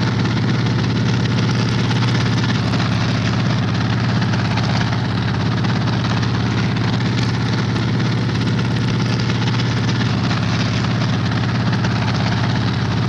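Helicopter engine and rotor running steadily, a continuous engine hum with a noisy rush above it.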